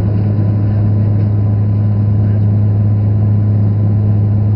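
Airplane cabin noise in flight: the engines give a steady, loud drone with a deep, even hum that does not change.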